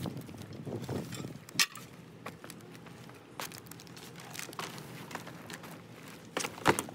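Scattered light clicks and knocks of small hard objects being handled, with a sharp knock about a second and a half in and a quick run of clicks near the end.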